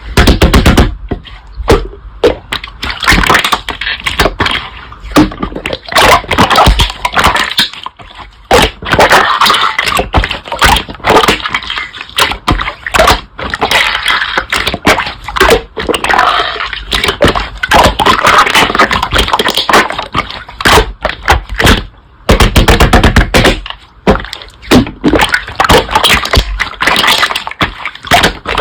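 Slime being squeezed, pressed and stretched by hand, making dense, irregular crackling pops and clicks as air pockets burst, with brief pauses about 8 and 22 seconds in.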